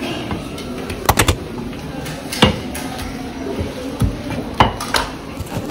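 A large fish knife knocking and tapping on a wooden chopping block while skipjack tuna is sliced: about seven sharp knocks, a quick run of three about a second in, over a steady background noise.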